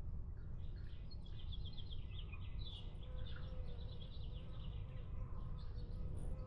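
Small songbirds chirping: a quick run of high, rapid chirps from about a second in to about four seconds in, over a steady low outdoor rumble.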